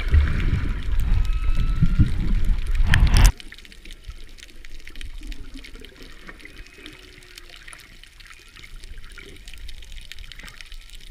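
Underwater sound on a coral reef. Loud, low rushing and bubbling of water cuts off abruptly about three seconds in. Then comes a quieter steady crackle of snapping shrimp, with faint tones of humpback whale song.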